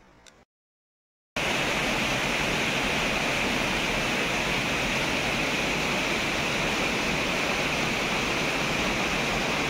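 Steady rush of flowing water, cutting in abruptly about a second and a half in after a moment of dead silence. Before the gap there is only faint outdoor hiss.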